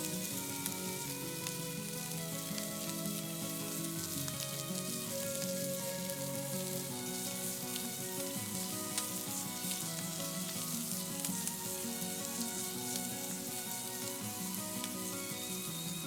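A lump of meat sizzling and spitting in a hot frying pan over a wood fire, a steady frying hiss with small pops. Background music plays under it.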